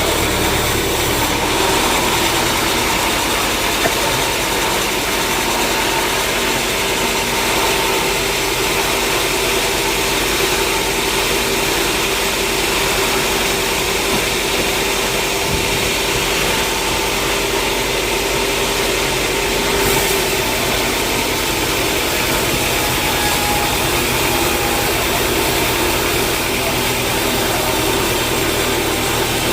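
Sawmill machinery running steadily with an even, continuous hum and no distinct cutting strokes.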